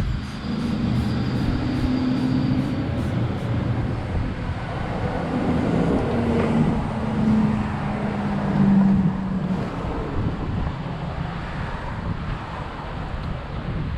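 A motor vehicle's engine running, its pitch shifting up and down and loudest a little past the middle, over a steady low rumble.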